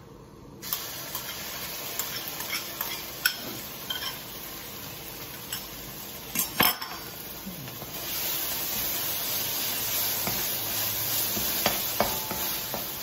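Ground spice paste sizzling as it hits hot oil in a wok, starting suddenly just under a second in, with a spatula clicking and scraping against the wok as it is stirred. The sizzle grows louder about eight seconds in.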